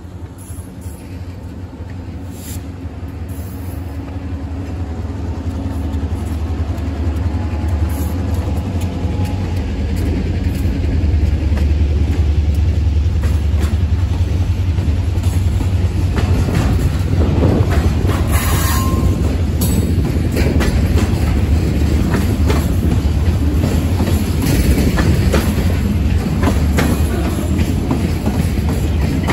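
Freight train hauled by EMD GP38-2 diesel-electric locomotives (16-cylinder two-stroke engines) drawing near and going by. The low engine rumble grows louder over the first ten seconds or so and then holds, with wheels clicking over rail joints in the second half.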